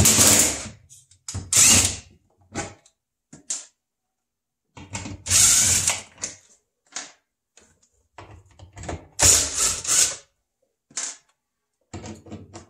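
Cordless drill backing out quarter-inch screws from a refrigerator's plastic evaporator cover, running in several short bursts with pauses between screws.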